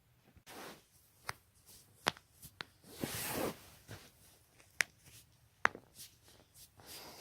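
Spinal joints cracking: about half a dozen sharp, short pops spread irregularly, with softer swishing noises in between, the longest about three seconds in.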